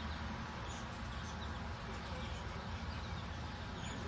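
Steady background hiss and low hum with a few faint, brief bird chirps.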